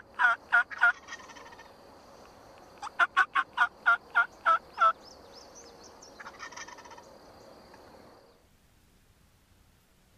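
Wild turkeys calling: a quick run of three short, loud notes, then a run of about nine more evenly spaced notes, and a fainter rattling call about six seconds in.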